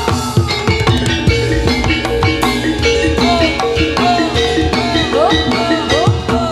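Jathilan music: Javanese gamelan-style accompaniment with struck mallet percussion holding a steady pattern of pitched notes over repeated drum strokes whose pitch drops.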